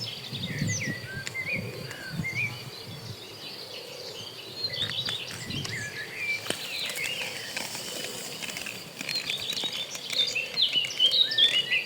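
Small birds chirping in many short, quick calls over a steady high insect drone, with soft low thuds in the first few seconds.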